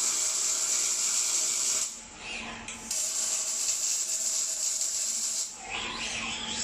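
Robotic arc welding: the welding arc hisses steadily in two runs of about three seconds each. It breaks off about two seconds in and again near the end, leaving a quieter hum between the runs.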